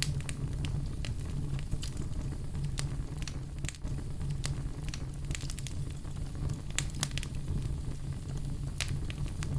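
Wood fire in a fireplace crackling, with frequent sharp pops and snaps over a steady low rumble of flames.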